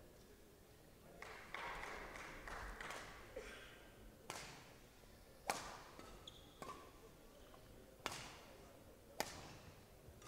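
Badminton rackets hitting a shuttlecock back and forth in a rally: five sharp hits, one a little over a second after another, in the second half.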